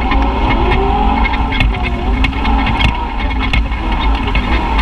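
Side-by-side UTV engine running under changing throttle on a bumpy dirt trail, its pitch rising and falling, with scattered sharp knocks and rattles from the ride.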